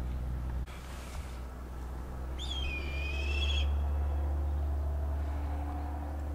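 A bird's single whistled call, about a second long and wavering in pitch, over a steady low rumble.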